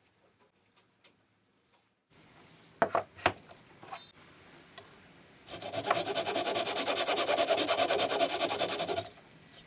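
Wood being shaped by hand: a few sharp wooden knocks, then about three seconds of steady, fast rasping as a tool scrapes along a wooden corner.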